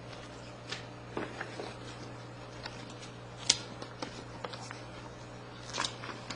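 Pages of a paper instruction manual being handled and turned: scattered light rustles and small clicks, with one sharper snap about halfway through, over a steady low hum.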